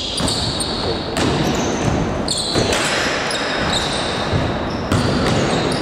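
Basketball game play: a ball bouncing on the court and sneakers squeaking sharply and repeatedly on the floor.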